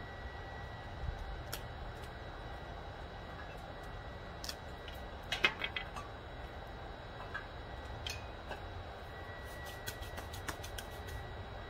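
Small pieces of wood clicking and knocking as they are handled and dropped into a BioLite CampStove 2, the loudest cluster about halfway through. Underneath is a steady low rumble and a faint steady high whine.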